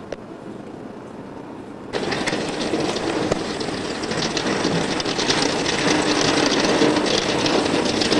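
Quiet street for about two seconds, then a snowplow truck's engine and its blade rattling and scraping over the road, growing louder.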